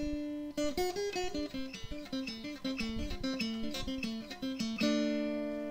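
Background music: a plucked guitar plays a melody of single notes, then settles on a held chord near the end.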